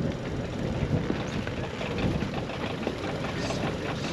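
Strong wind buffeting the microphone aboard a yacht: a dense, uneven low rumble.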